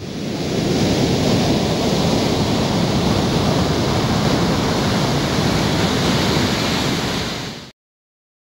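Steady rush of ocean surf, swelling up over the first second and cutting off suddenly near the end.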